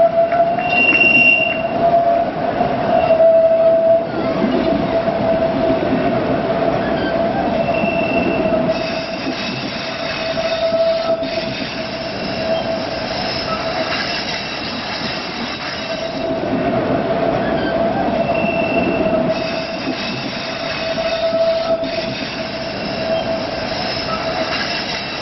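Narrow-gauge railway passenger coaches rolling past on a curve, their wheels squealing against the rails in a steady high whine, with sharper, higher squeals coming and going several times over the rumble of the running gear.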